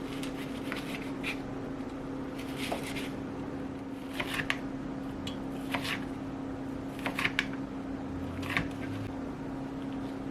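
Kitchen food-preparation handling: short scraping and rustling strokes come in small clusters, several times, over a steady low hum.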